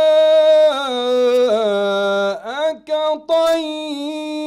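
A man's voice reciting the Quran in the melodic mujawwad style into a microphone: a long ornamented held note on 'as-samā'' that steps down in pitch, a brief break in the middle, then 'ka-ṭayy' on a higher held note.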